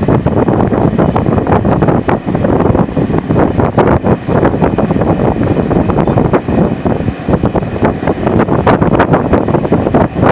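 Wind buffeting the microphone held out of a moving passenger train carriage's window, over the steady rumble of the carriage running along the track.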